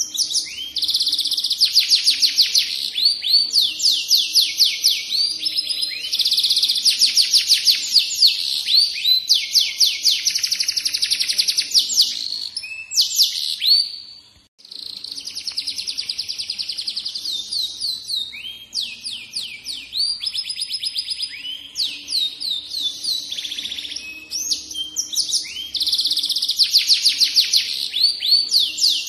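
Yellow canary singing a long, unbroken song of fast repeated rolls, each note a quick falling sweep, one phrase running into the next, with a brief pause about halfway through.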